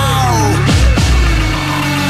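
Loud electronic music with a heavy, steady bass and swooping high tones.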